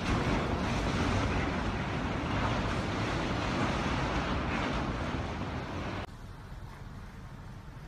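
Loud steady rush of wind on the microphone and water churning against a ferry's hull at a dock. About six seconds in it drops suddenly to a quieter low rumble.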